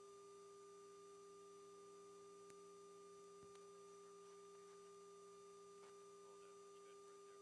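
Near silence: a faint, steady hum of a few held tones with light hiss, the background of an aircraft radio or intercom line.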